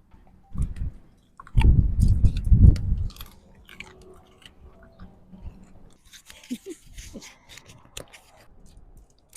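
A dog crunching and chewing a piece of carrot, with loud crunches in the first three seconds that then fade to softer chewing.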